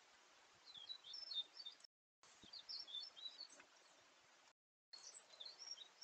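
Wild songbirds chirping in quick, high twittering phrases in three bursts over a faint steady hiss. The sound drops out completely twice for a moment, where trail-camera clips are joined.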